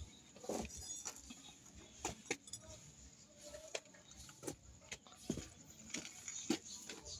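Scattered light metallic clinks and knocks at irregular intervals, from tools and parts being handled during a front wheel bearing job.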